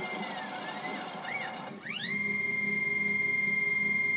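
Dyna Myte 2800 CNC milling machine cutting circular grooves in an aluminum plate, its motor whine gliding up and down in pitch as the cutter follows the circles. About two seconds in, a louder high whine rises quickly and then holds one steady pitch.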